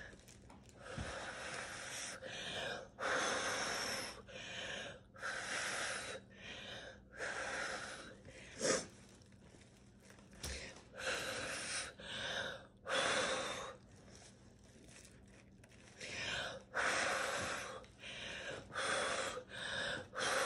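A person blowing hard through the mouth onto wet acrylic pour paint on a canvas, a dozen or more short rushing puffs of breath with quick gaps between and a quieter spell about two-thirds of the way through. The blowing spreads the paint puddle outward to open the bloom and stretch out lacing.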